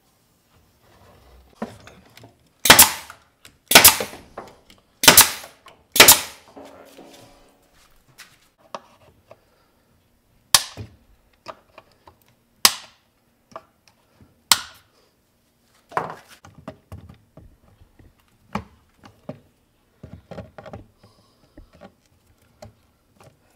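A staple gun fires four loud shots about a second apart, driving staples into a pressed-wood drawer joint. It is followed by fainter sharp snaps every second or two as cutting pliers snip off protruding staple legs.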